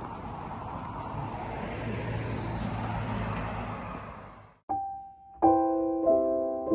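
Outdoor ambience with a low vehicle hum, cut off about four and a half seconds in. Solo piano music then starts: a single note, then chords.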